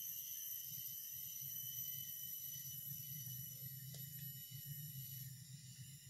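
Insect chorus: several insects trilling steadily at different high pitches, with a low steady rumble underneath and a faint click about four seconds in.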